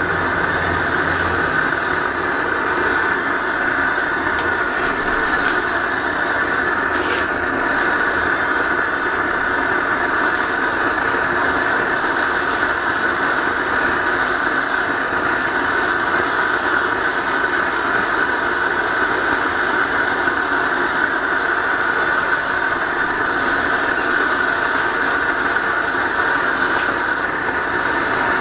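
Gas blowtorch burning with a steady rushing hiss, its flame playing on a thick steel plate and rail section to preheat them for welding.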